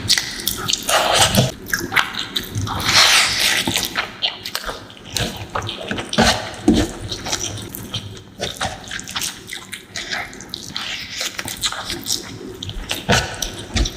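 Close-miked eating of fish curry with rice: wet chewing and lip smacking, a rapid, irregular run of small moist clicks.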